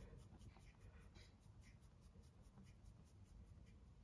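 Very faint, soft rustling of flour sliding and pouring from a plastic container into a glass bowl, in short scattered scratches.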